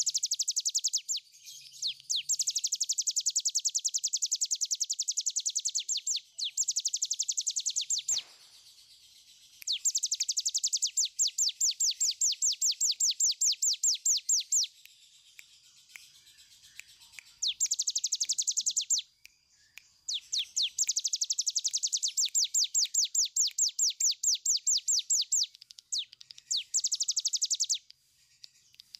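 Caged cigun (a prinia) singing its long rattling 'ngebren' song: fast, even series of high, sharp notes, delivered in runs of a few seconds each with brief pauses between them.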